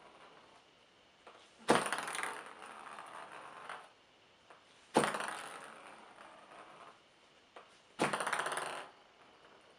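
Three sharp clicks about three seconds apart, each followed by a fast rattle that fades away over a second or two: a small hard object flicked into a spin on a hard surface, spinning down to rest.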